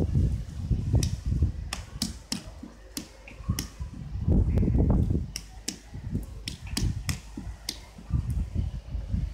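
Wind buffeting the microphone in irregular gusts, with about a dozen sharp clicks scattered through the middle.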